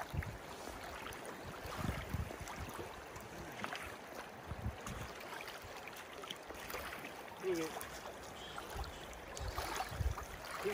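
Steady rush of a shallow river flowing over a stony riffle, with a few dull low bumps.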